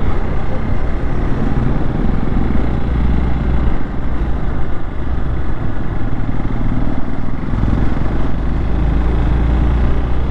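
Hero XPulse 200's single-cylinder engine running steadily while the bike is ridden along at road speed, with wind rushing over the microphone.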